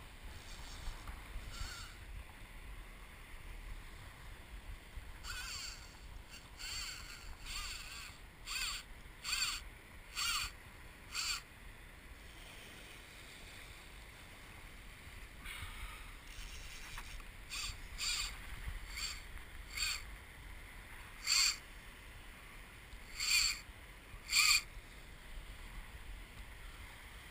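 A fly reel's drag buzzing in short bursts as a hooked bream pulls line off it, in two spells with a few seconds' lull between. A low hiss of wind and water runs beneath.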